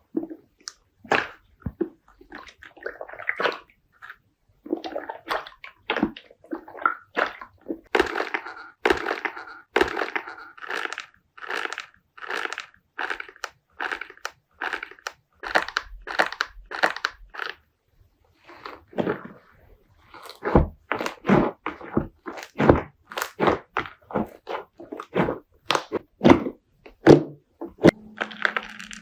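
Slime being squeezed, poked and pressed by hand, giving a quick string of short squishing and crackling pops, several a second. There is a brief pause about 18 seconds in, then sharper, louder pops.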